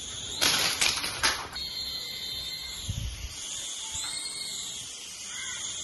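Small electric motor and rotor of a flying fairy doll toy whining steadily in flight, the pitch bending up and then down about four seconds in. Several loud rustling bursts come between about half a second and a second and a half in.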